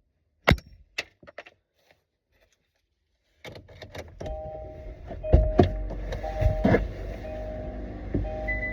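Two clicks of the key in a Kia Forte's ignition, then a pause, then about three and a half seconds in the engine comes to life and runs steadily, with short repeated tones over it. The car now starts once the decorative ring fitted around the ignition has been removed.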